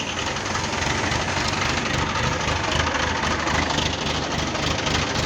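Heavy engine idling steadily with a low, even throb.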